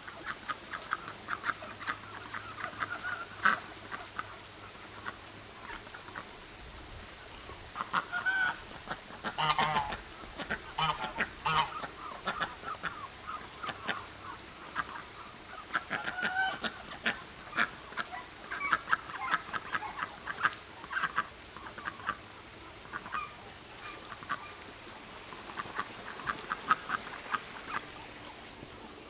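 Ducks quacking in scattered bouts of short, rapid calls.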